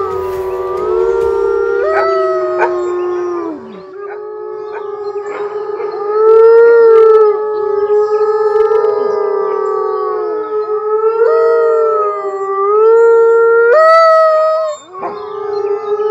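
A pack of wolves howling in chorus: several long, overlapping howls that rise and fall in pitch, with a brief break about four seconds in and again near the end.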